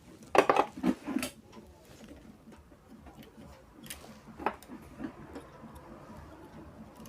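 A few small clicks and taps from hands working on a car stereo's internal wiring: a quick cluster in the first second, then two sharper clicks about four seconds in.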